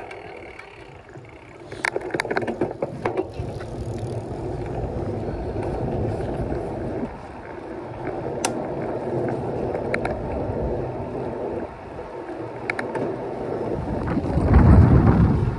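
Bicycle ride noise: steady rumble of tyres and wind on the microphone, with a few sharp clicks and rattles. A stronger low rush of wind comes near the end.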